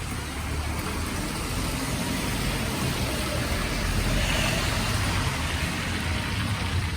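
A motor vehicle driving past on a snowy street, its engine rumble and tyre noise swelling to a peak a little past the middle and easing off toward the end.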